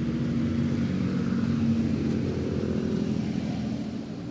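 A motor engine running with a steady low hum that fades away near the end.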